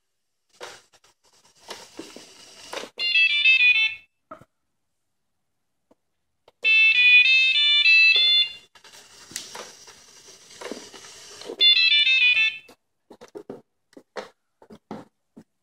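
iRobot Braava floor-mopping robot playing a short electronic melody of stepping beeps three times. Scattered clicks, knocks and rustles of the robot being handled on the tile floor come between and after the jingles.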